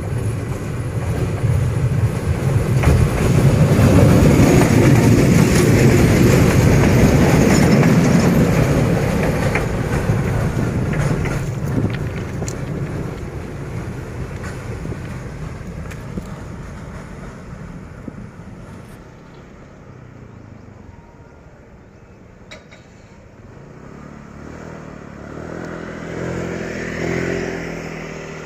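D12E diesel locomotive hauling a D11H passing close by: engine running and wheels rolling on the track, loudest about four seconds in and then fading away over the next fifteen seconds. Near the end a road vehicle's engine rises and falls.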